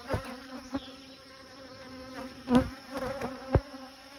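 Honey bees buzzing on the open top bars of a hive, a steady low hum with a few short louder knocks, the loudest about two and a half seconds in.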